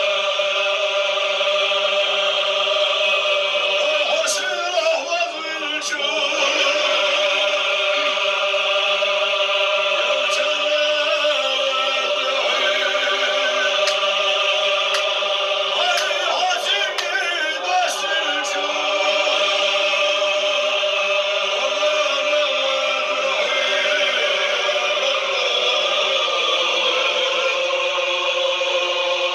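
A group of men chanting together in unison, long held notes that waver slowly in pitch, in the manner of a seated Sufi zikr.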